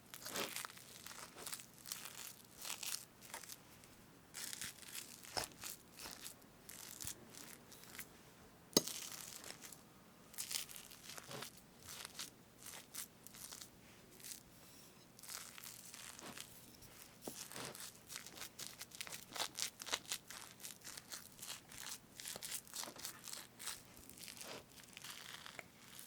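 Fresh whipped cream on a strawberry cake being cut and parted close to the microphone: many short, irregular soft crackles, with one sharper click about nine seconds in.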